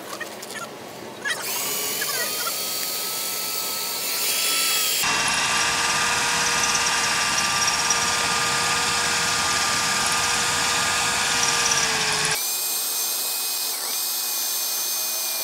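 Electric drill boring into the steel door of a Griffon CLE I.30.K burglary-resistant safe beside the lock, in an attempt to drill out the bolt area. It starts about a second in as a steady whine, and its pitch and loudness shift twice.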